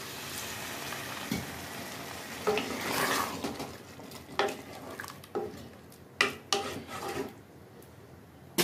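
Water poured into a pressure cooker pot of minced meat and potato curry, a steady splashing pour for the first couple of seconds. Then a spoon stirs the thick mixture, scraping and clinking against the metal pot several times.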